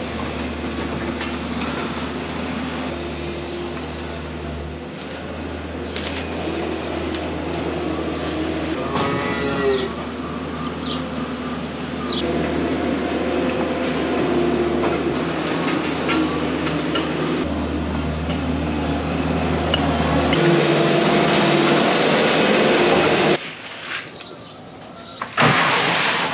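Grain feed poured from buckets into cattle troughs, rattling and hissing, over a steady low machine drone. A cow moos once about nine seconds in. The drone cuts out suddenly near the end.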